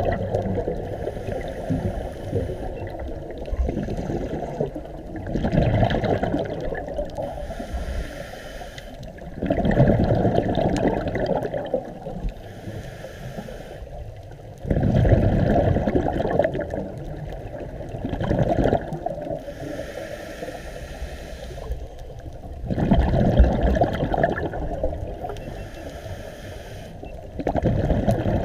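A scuba diver breathing through a regulator underwater: loud bursts of exhaled bubbles about every four to five seconds, each lasting a second or two, with a fainter high hiss of the inhale between them.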